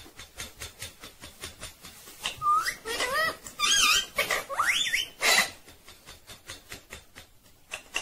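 Rose-ringed parakeet clicking and tapping on a steel wire cage as it climbs, with a run of loud whistled calls that glide up and down and harsh squawks from about two and a half to five and a half seconds in.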